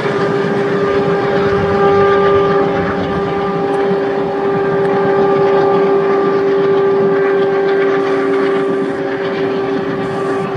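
Locomotive horn held in one long steady blast of several tones together, over the running rumble of a long passenger train.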